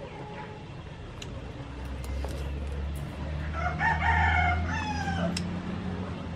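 A rooster crowing once, starting about three and a half seconds in and ending in a falling tail, over a steady low hum.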